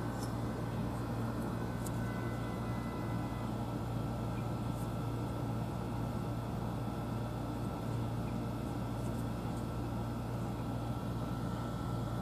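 A steady low hum with an even background noise that doesn't change, and a few faint clicks.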